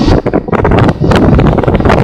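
Wind buffeting the microphone of a camera on a moving motorcycle, loud and gusty, over the rumble of the bike and the road.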